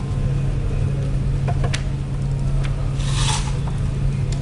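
Click-lock floor planks being handled and fitted, with a few light wooden clicks about a second and a half in and a short scraping rub about three seconds in, over a steady low hum.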